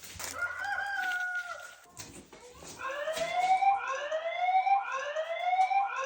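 Poultry calling: one long held call, then a run of rising calls about once a second, the calls overlapping as if from several birds.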